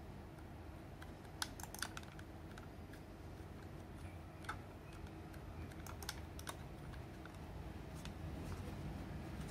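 Scattered light clicks and taps, about half a dozen, from fingers handling a Razer Viper Mini gaming mouse and pressing grip tape onto its plastic sides, over a faint low hum.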